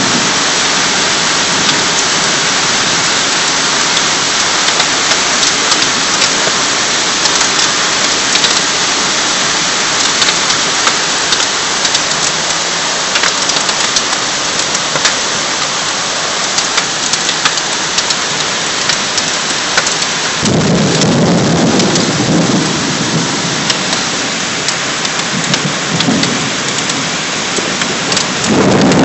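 Heavy rain pouring steadily, with many sharp drop impacts close by. About two-thirds of the way through, a deeper rumble swells in for several seconds, and it returns near the end.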